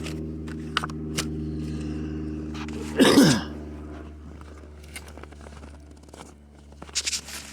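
A steady engine idle hum, with clicks and rustling of objects being handled and a short, loud vocal burst falling in pitch about three seconds in.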